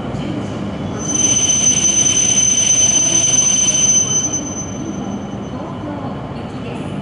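Tohoku Shinkansen train at the platform, rumbling steadily, with a steady high-pitched squeal that starts about a second in and stops after about three seconds.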